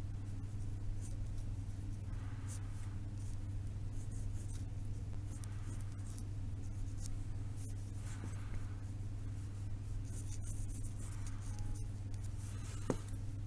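Fine 0.2 mm mechanical pencil scratching lightly on a sketch card in short, intermittent strokes, over a steady low hum. A single brief click near the end.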